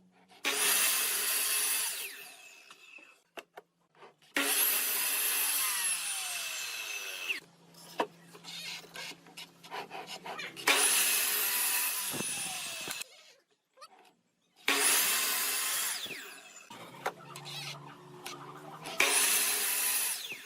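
Electric woodworking power tool run against wood in five bursts of one to three seconds, each starting suddenly, with a low steady hum in the gaps between bursts.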